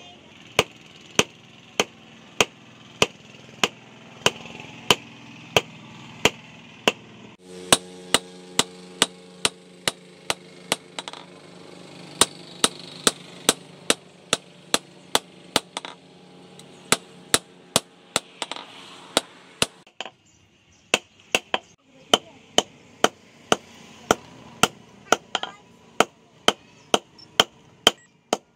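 Hand hammer forging red-hot steel from a bearing inner race on a steel post anvil: a steady run of sharp blows, about three a second, broken by a few short pauses.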